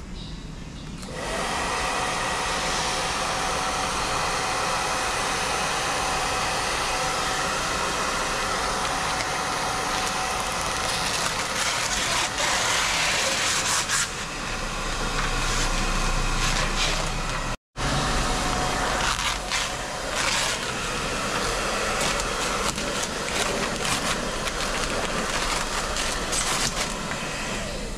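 An electric power tool working wood, a steady motor hum under rough noise, as in the camper build-out. It stops sharply about two thirds of the way through and starts again straight after.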